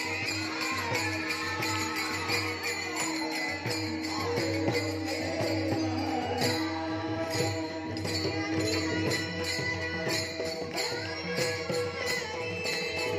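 Warkari bhajan: pairs of small brass taal hand cymbals struck in a steady rhythm under a young male voice singing the devotional melody.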